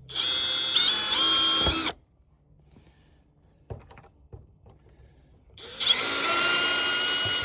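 Electric drill-driver backing screws out of a TV's back panel: two runs of about two seconds each, the motor whine stepping in pitch as the screw loosens. A couple of faint clicks come between the runs.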